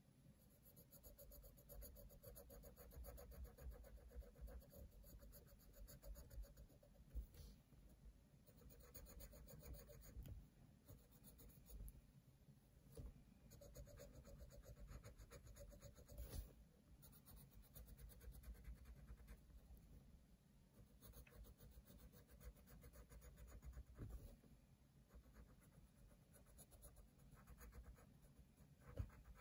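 Coloured pencil scratching on paper in quick, continuous shading strokes, faint and close, with a few soft knocks.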